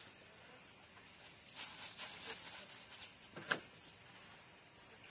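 Faint rustling of soil being scooped by hand and a plastic shopping bag being handled, over a steady faint hiss, with one short sharp click about three and a half seconds in.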